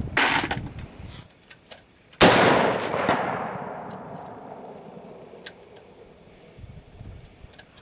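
A single shot from a Rock River LAR-8 .308 rifle about two seconds in, a sharp crack whose report fades away over a couple of seconds. A shorter burst of noise comes right at the start, and a few faint clicks follow.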